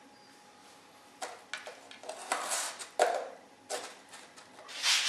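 Light plastic cups knocking and scraping on a small board as a dog paws at them and a hand moves them. A run of sharp taps and short scrapes begins about a second in.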